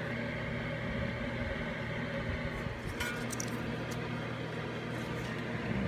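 A steady low hum, with a faint click about three seconds in as the ABS wheel speed sensor is seated back in the hub and its retaining bolt is started with a folding Allen key.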